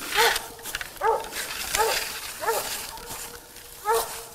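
Squirrel dog barking treed: single barks in a steady chop, about one every three-quarters of a second, five in all, with a longer gap before the last. The dog is bayed at the tree where a squirrel sits.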